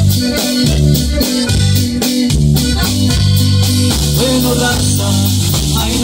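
Live band playing a corrido: a strong bass line under guitar and keyboard, with drums keeping a steady beat.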